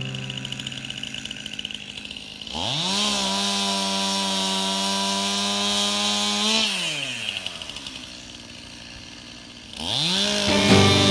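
Chainsaw revved up sharply about two and a half seconds in, held at full throttle for about four seconds, then released and winding down. It is revved up again near the end.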